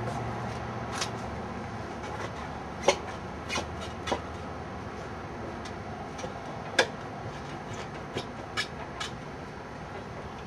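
Scattered light clicks and knocks from handling a motorcycle tire, wheel and tools, about seven in all, the sharpest about three and seven seconds in, over a steady low background hum.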